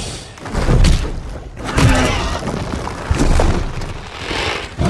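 Movie fight sound effects: a run of heavy thuds and crashing, breaking impacts, three big ones about a second apart, with music underneath.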